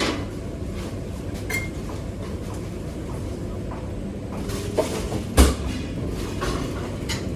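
Working restaurant kitchen: a steady rumble with scattered clinks and knocks of dishes, pans and cupboard doors, and one loud knock about five seconds in.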